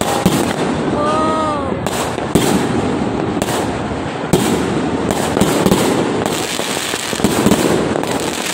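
Fireworks going off nonstop: sharp bangs every second or so over dense crackling from aerial shells bursting overhead.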